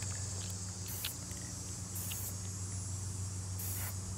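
Aerosol spray-paint can sprayed in three short hissing bursts, a second or so apart, over a steady low hum.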